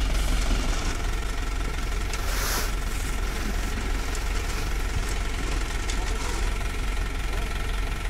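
Diesel engines of road-paving machinery running steadily with a deep rumble, and a short hiss about two and a half seconds in.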